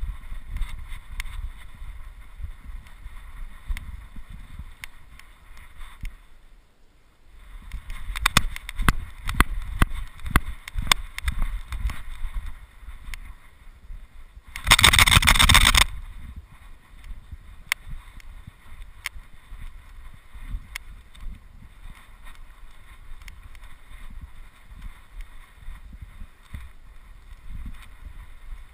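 Wind rumbling on the microphone. In the middle stretch come crunching and rustling clicks, then one loud burst of rustling noise lasting about a second.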